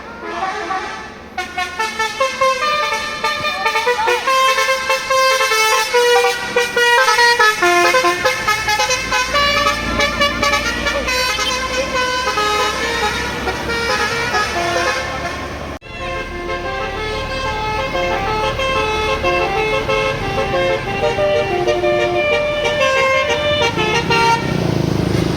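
Bus telolet horn of the basuri type playing a fast tune of stepped horn notes. The tune breaks off about two-thirds through and another begins, and a low rumble rises near the end.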